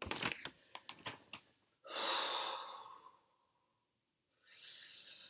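A woman breathing close to the microphone: a long breathy exhale that fades out, then a shorter breath near the end, after a few quick clicks at the start.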